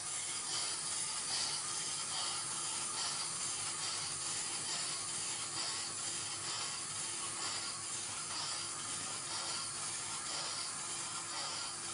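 Clockwork spring motor of a small wind-up dancing toy running after being wound: a steady mechanical whirr as the figure twists its hips.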